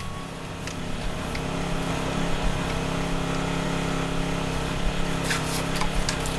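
An engine running steadily at idle, a low, even hum, with a few light clicks over it.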